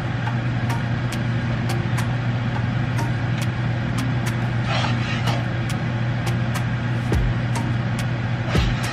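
Butter in a hot skillet crackling and popping over a steady low hum. Two short hissing sizzles come about five seconds in and again near the end, as shrimp go into the pan.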